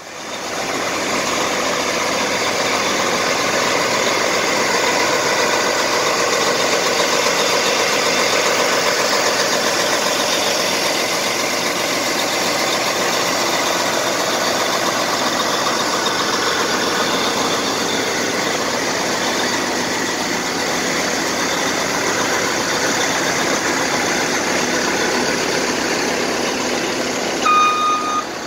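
John Deere 9470RX tractor's large diesel engine idling steadily, getting louder in the first second. Near the end a vehicle's reversing beeper starts, beeping about once a second.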